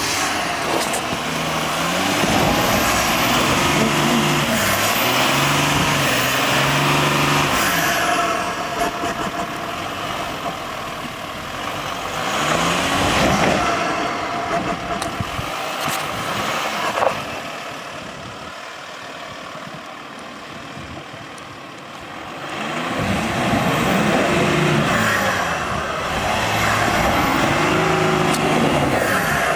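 2011 Volkswagen Touareg TDI's V6 diesel engine working off-road, its revs climbing, holding and dropping off again. The engine goes quieter for a few seconds about two thirds of the way through, then picks up again.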